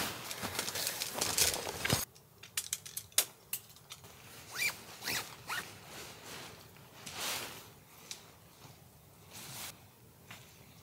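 Nylon tent fabric rustling and a string of short swishes and scrapes as poles are fed into a Hilleberg Allak 2 tent being pitched. The noise is denser for the first two seconds, then thins to separate swishes and light clicks.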